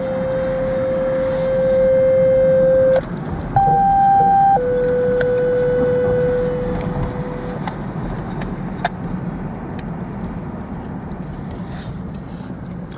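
Federal Signal Equinox outdoor warning sirens sounding a steady test tone that steps between a lower and a higher pitch. The tone fades out about seven seconds in, leaving steady car and wind noise.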